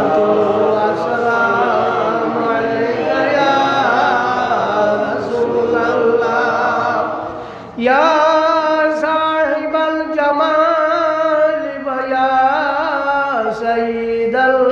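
A man chanting an Arabic devotional invocation in a drawn-out, ornamented melody with long held notes. A new loud phrase begins about eight seconds in.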